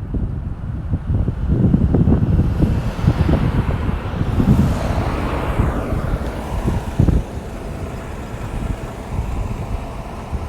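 Road traffic with wind buffeting the microphone: a vehicle passes in the middle, its tyre and engine noise swelling and then fading away.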